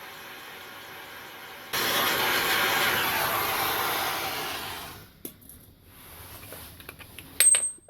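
A loud, even rushing noise starts suddenly, runs about three seconds and fades away. A few light clicks follow, then metal clinks near the end, one of them ringing.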